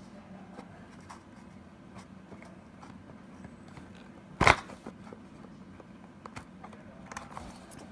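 A cardboard game box and its packing tape being handled and picked at: faint, irregular scraping and small crackles, with one brief, loud, sharp sound about halfway through.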